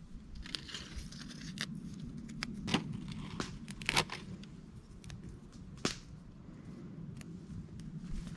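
Fresh herbs being plucked and torn by hand, with scattered sharp snaps over a low steady background.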